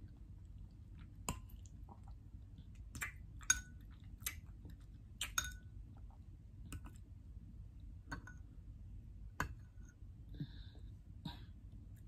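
Chewing of soft kiwi fruit: about a dozen scattered wet mouth clicks over a faint steady hum, with a couple of light clinks of a metal fork against a glass bowl.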